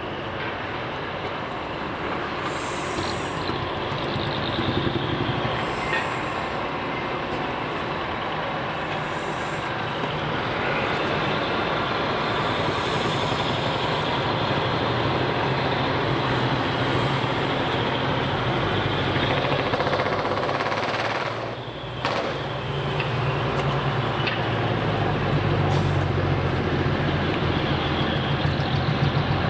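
Big decorated trucks driving in slowly, their diesel engines running, with several short air-brake hisses in the first half.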